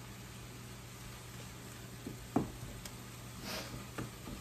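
Wooden spoon stirring ground beef in a stainless steel skillet, knocking and scraping against the pan a few times from about two seconds in, over a steady low hum.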